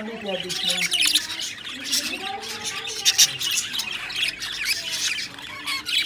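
Budgerigars chattering: a dense, steady run of quick chirps and harsh squawks.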